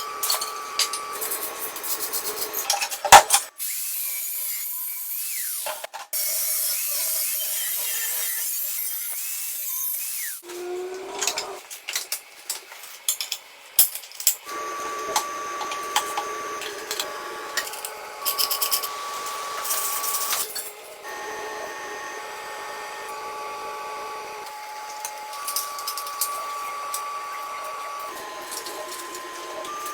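Workshop hand-tool sounds from restoring the moped's metal parts, in several short edited stretches: tools rubbing and scraping, a stretch of steady hiss a few seconds in, and scattered clicks and knocks.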